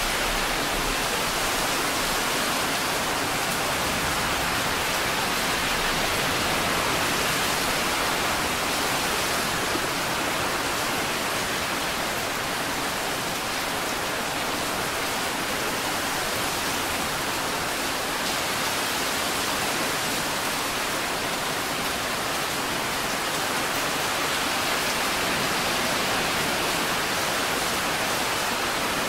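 Steady rain falling, a dense even hiss.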